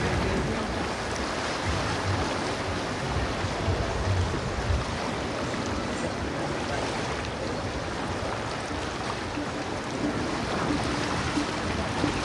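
Steady wash of outdoor noise on a walking camera's microphone, with a gusty low rumble of wind on the microphone through the first few seconds; a faint steady tone comes in near the end.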